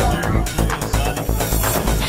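Electronic dance music soundtrack. The kick-drum beat drops out for a short break, leaving held synth notes.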